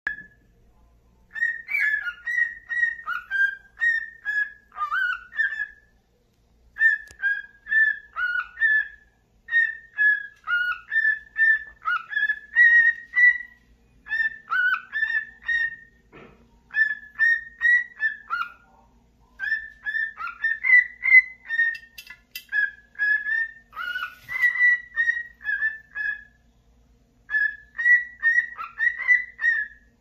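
Cockatiel singing a whistled song: quick warbling whistle notes in phrases of a few seconds, broken by short pauses.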